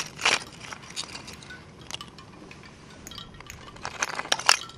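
Hard shells clinking and clicking against each other, like oyster shells knocked together: two sharp clinks at the start, then scattered single clicks, and a quick run of louder clinks about four seconds in.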